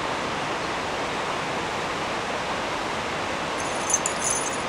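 Steady rushing roar of an 80 m mountain waterfall, Sodaki falls, even and unbroken. A few brief high-pitched chirps come through near the end.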